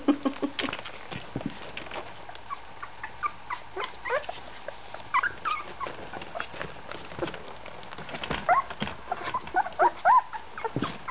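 Newborn golden retriever puppies, about 18 days old, giving short high-pitched squeaks and whimpers, in bunches around the middle and again near the end, over light scuffling clicks.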